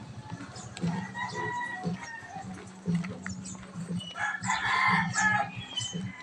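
A rooster crowing; the loudest crow comes about four seconds in and lasts a little over a second.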